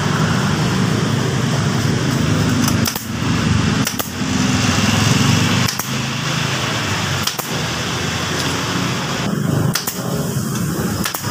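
Pneumatic staple gun firing staples through a vinyl seat cover into the seat base: about six sharp clicks, a second or two apart, over a steady low motor hum.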